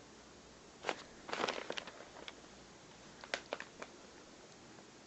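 Scattered light clicks and knocks of a rifle being handled, a small cluster about a second and a half in and another near three and a half seconds.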